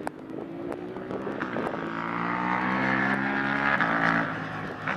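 Electric racing motorcycle passing on the straight: a motor whine of several pitches at once that climbs slightly and grows louder, peaking about four seconds in. Its pitch drops a little as it goes by.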